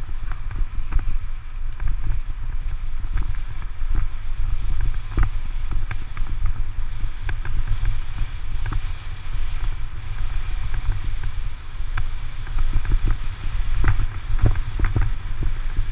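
Mountain bike riding over a dirt road: a steady low rumble of wind buffeting and road vibration on the bike-mounted microphone, with frequent small knocks and rattles as the bike jolts over the bumps.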